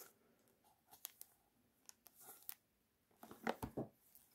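Faint crinkling and light clicks of fingers handling a cellophane-wrapped perfume box, with a louder spell of handling about three and a half seconds in.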